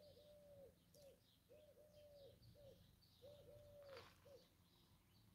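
Faint cooing of a dove: a run of soft, repeated coos, some short and some drawn out, stopping a little past four seconds in.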